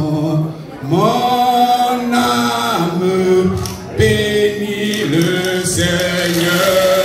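A man singing into a microphone in long held phrases, with brief breaks about half a second in and again near four seconds in.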